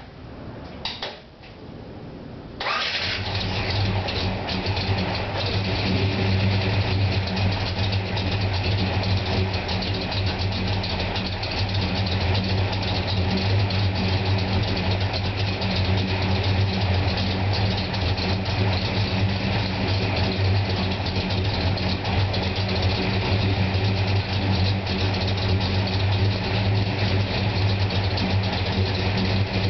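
Pontiac GTO V8 fitted with electric exhaust cutouts starting about two and a half seconds in, then idling steadily.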